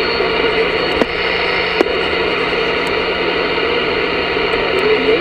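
Steady static hiss from a Voyager VR9000 CB radio's speaker as it is tuned across the 11-meter band on upper sideband, with no clear station coming through. Two sharp clicks sound about one and two seconds in.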